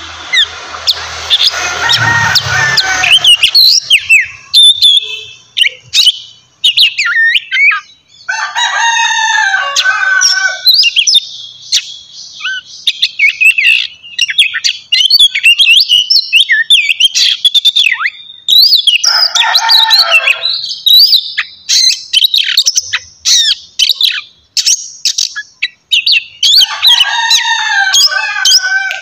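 Oriental magpie-robin (kacer) singing loudly: a varied run of high whistles and slurred notes, broken about every eight to ten seconds by a dense, harsh chattering phrase.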